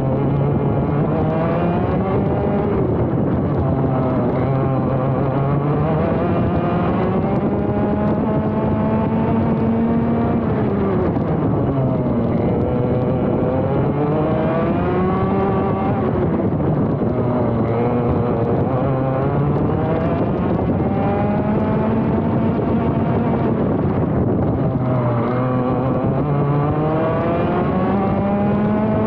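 ROK GP Junior 125 cc two-stroke kart engine heard from onboard at racing speed. Its note climbs as it accelerates out of corners and drops as it slows for the next, rising and falling again and again.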